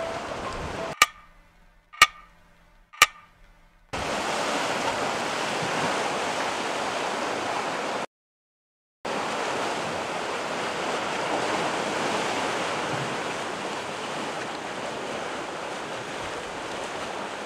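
Steady rush of sea surf. About a second in it gives way to a brief hush holding three sharp clicks a second apart, and it cuts out for about a second near the middle.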